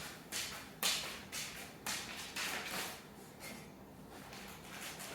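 Short swishing scrapes repeating about twice a second, then stopping a little past three seconds in, as a curtain rod is handled and fitted with its curtain.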